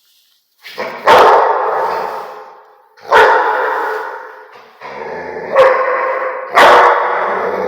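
Rottweiler barking: after a brief silence, four loud, deep barks spread over several seconds, each trailing off slowly.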